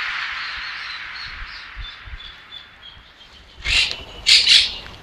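Bird calls: a run of faint, short, high chirps, then loud harsh calls, once about two-thirds of the way in and twice more near the end. A fading hiss from the preceding music lingers over the first second or two.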